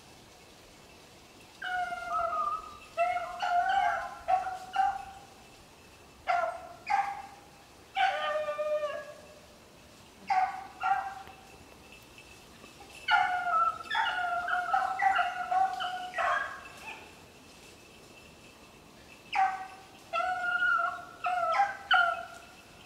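Rabbit hounds baying in bouts: strings of high, drawn-out bays lasting a few seconds each, with short pauses between. This is the dogs giving voice as they run a rabbit's trail.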